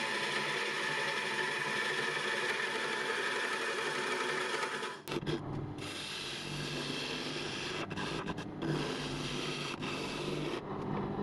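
Wood lathe spinning a dry end-grain bowl blank while a gouge cuts into it: a steady scraping over the lathe's motor hum. About five seconds in, the sound changes abruptly to a lower rumble with lighter, broken cutting.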